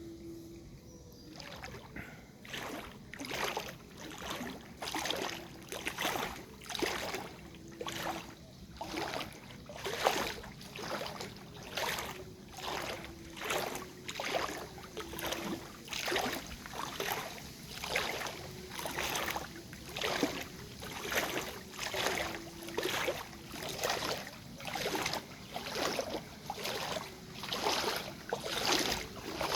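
Rhythmic splashing in floodwater, about one stroke a second, like a paddle or oar working the water.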